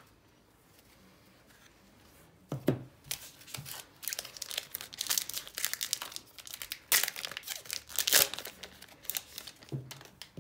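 Trading card pack wrappers being torn open and crinkled: irregular crackling rustles that start after a quiet couple of seconds, loudest in the second half.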